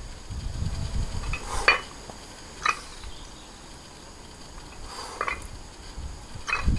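A handful of short metallic clinks from plate-loaded dumbbells, with the iron plates knocking on the handles as the weights are lowered and curled. The clinks are spread a second or more apart over a low rumble.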